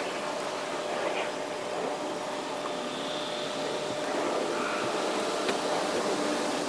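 Steady background noise with a faint steady hum, and a few faint clicks as wires and a connector plug are handled in an engine bay.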